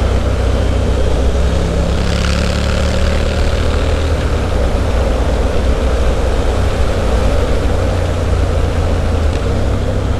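Triumph Street Scrambler's 900 cc parallel-twin engine running through a Zard aftermarket exhaust, held steady at cruising speed with no rev changes.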